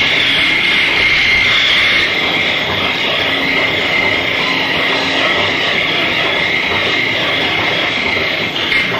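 Harsh noise music: a loud, dense, continuous wall of noise with a steady high whine running through it and no distinct separate crashes.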